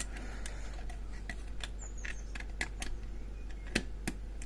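Small irregular metal clicks and scrapes of a bypass tool and tension wire working the levers inside a Lips lever lock, with the loudest click near the end and a low steady hum underneath.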